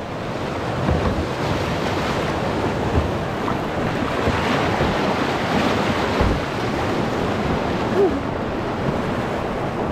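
Whitewater rapids rushing and churning close around an open canoe as it runs through them, with the paddle splashing in the waves and wind buffeting the microphone in a few low thumps.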